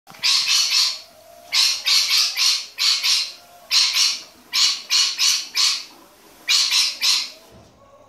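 Rainbow lorikeet screeching in loud, harsh bursts of two or three calls at a time, over and over, which the owner takes as her demand for more cappuccino.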